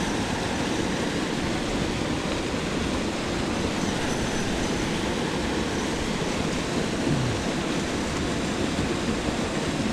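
Water pouring from a small spillway and churning white in the pool below: a steady rushing noise.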